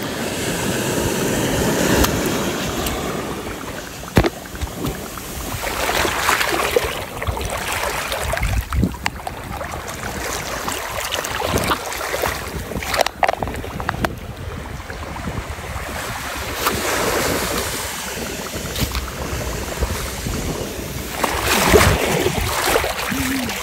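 Shallow sea water washing over wet beach sand, swelling and fading several times, with a hand swishing and splashing through the wet sand and water.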